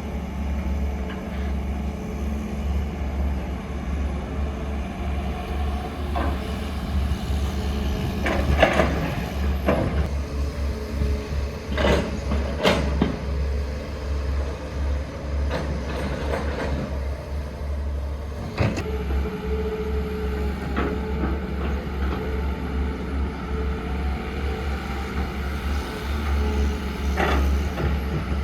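Heavy diesel machinery running steadily with a deep low drone, broken by a few sharp metallic clanks and knocks.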